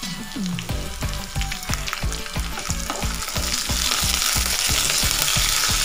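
Curry leaves, sliced shallots and garlic sizzling in hot coconut oil in a kadai as a wooden spatula stirs them. The sizzle grows louder about halfway through.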